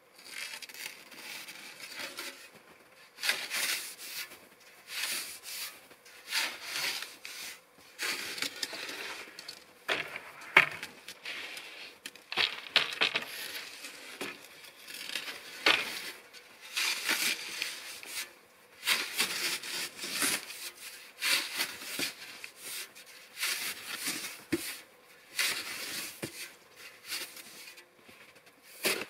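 Metal snow shovel scooping and tossing dry, cold snow, a crunching scrape about every second or two.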